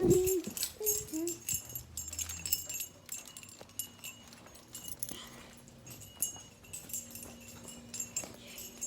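An animal whining in a few short high calls in the first second or so, the first one the loudest, followed by light jingling and clicking.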